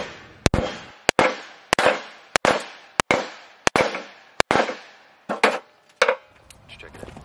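Hammer blows on the steel deck of a John Deere D110 riding mower around the blade spindle, struck to bend the bent deck back level. About a dozen sharp metallic strikes at an uneven pace, some in quick pairs, each ringing briefly and fading; the last falls about six seconds in.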